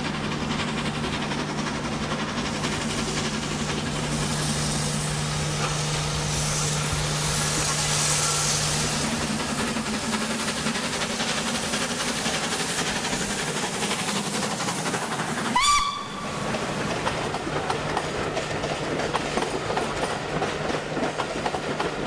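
A preserved steam locomotive hauling a passenger train past at close range, with continuous exhaust and running noise. About two-thirds of the way through, as the engine passes, there is a brief loud sharp sound falling quickly in pitch. After it, the coaches rattle over the rail joints.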